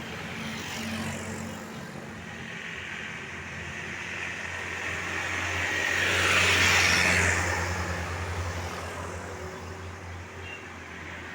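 A road vehicle passing close by, its engine hum and tyre noise swelling to a peak about two-thirds of the way through and then fading away.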